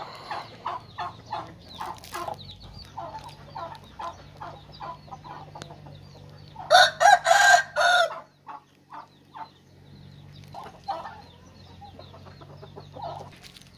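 Chickens clucking in short repeated calls, with a rooster crowing once, loudly, about seven seconds in.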